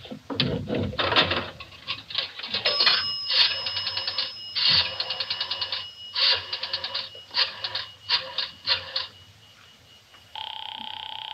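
Radio-drama sound effects of a payphone call: a run of sharp clicks as the dial is worked, with a steady high tone partway through. About ten seconds in, a steady ringing tone starts on the line.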